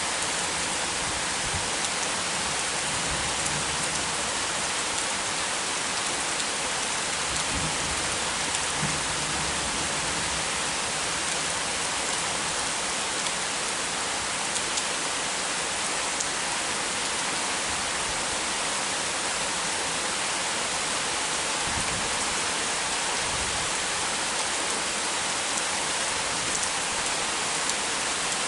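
Heavy rain falling steadily, an even hiss with a few sharp drip ticks here and there.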